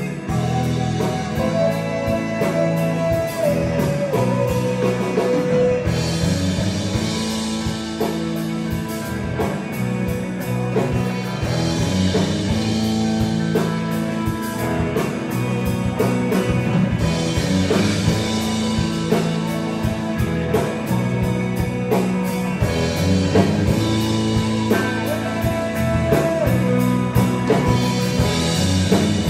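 Live rock band playing electric guitars over a drum kit, with a held lead-guitar note stepping down in pitch in the first few seconds and cymbals crashing in repeated loud stretches.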